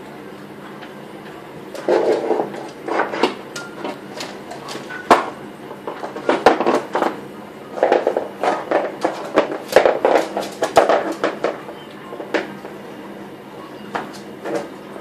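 Beagle scrabbling and rolling with a hairbrush on a laminate floor: irregular bursts of scuffling with sharp knocks and clicks, busiest from about two to eleven seconds in.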